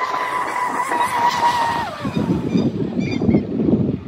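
RC speedboat's TP 4090 brushless motor and drive line running at speed on 6S, a steady high-pitched whine. About two seconds in the pitch drops away as the throttle comes off and the boat turns.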